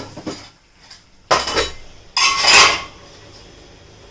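A metal spoon clinking and then scraping twice against a kadhai, a short scrape then a longer one, as salt goes into the frying masala. A few light clicks come first.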